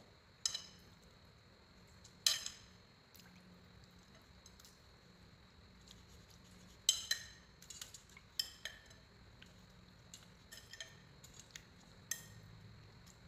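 Scattered clinks and taps of chopsticks against a stainless steel bowl as pieces of skinned rat meat are laid into a fish-sauce marinade. The sharpest taps come about two seconds in and about seven seconds in, with lighter ones after.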